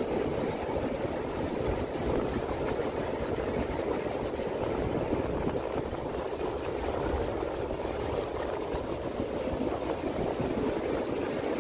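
Steady roar of breaking surf, mixed with wind rumbling on the microphone.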